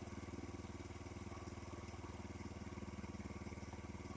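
50cc Chinese scooter's GY6-type single-cylinder four-stroke engine idling steadily with an even, rapid pulse.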